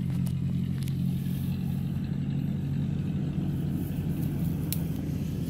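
An engine running steadily with an even low hum, with a few faint sharp ticks.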